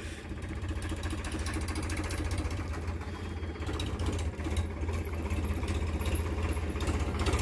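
Powertrac Euro 50 tractor's three-cylinder diesel engine running steadily as the tractor drives slowly up, with a rapid even diesel clatter that grows a little louder as it nears.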